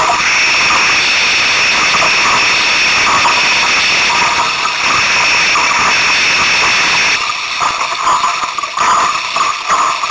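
Strong wind blowing over the camera microphone on a small sailboat: a loud, steady hiss that turns into uneven, gusty buffeting about seven seconds in.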